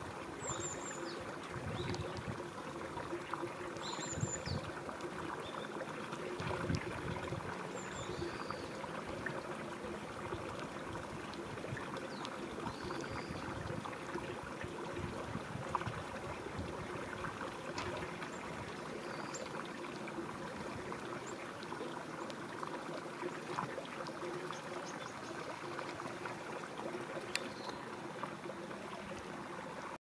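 Shallow river water running steadily over its bed. Now and then a small bird gives short, high chirps, mostly in the first few seconds.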